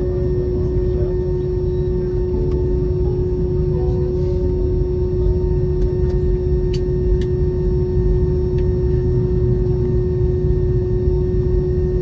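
Jet airliner cabin noise while taxiing: a steady low rumble with a constant hum running over it, and two light clicks a little past halfway.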